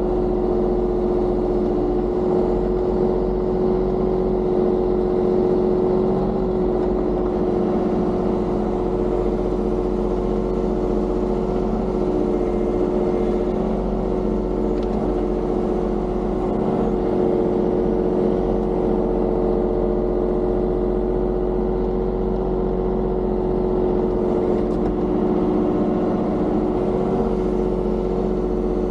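Diesel engine of a compact construction machine running steadily under working load while it strips gravel and backfills, with a constant engine drone.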